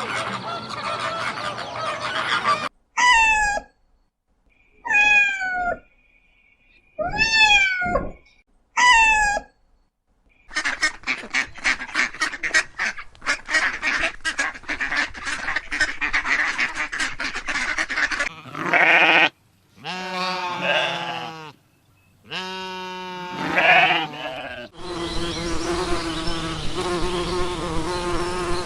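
A run of separate farm-animal recordings. It opens with honking fowl, then four loud calls that fall in pitch, then a dense flock chattering in quick short calls, then several bleats. From about 25 seconds in comes a steady buzzing hum of insects.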